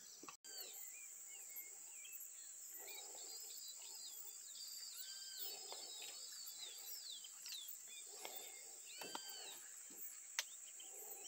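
Faint outdoor chorus of birds, with many short high chirps and whistled glides and low rough calls every couple of seconds, over a steady high insect buzz.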